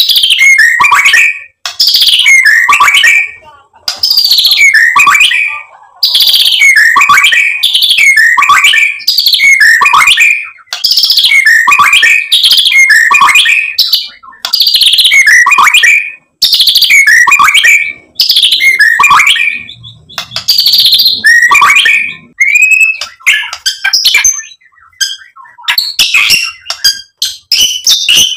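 White-rumped shama (murai batu) singing: loud, clear whistled phrases that fall in pitch, repeated a little over a second apart, then breaking into a quicker run of varied short notes over the last several seconds.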